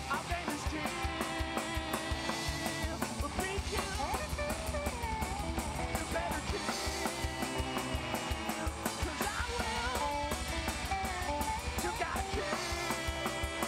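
A live rock-and-roll band playing: a drum kit keeps a steady beat under electric guitar, acoustic guitar and upright bass.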